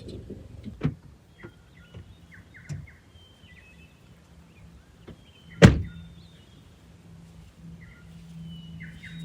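A van door handled and shut: a few knocks and clicks, then one loud thump a little past halfway. Birds chirp in the background, and a low steady hum follows the thump.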